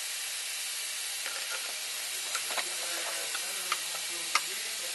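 Steady hiss of compressed air holding the valve shut in the N62 V8's cylinder, with a few light metallic clicks and ticks as the valve spring is taken off the valve stem.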